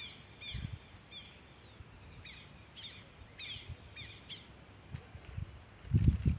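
A small bird chirping: short, high, falling chirps repeated about twice a second. Near the end comes a burst of low rumble.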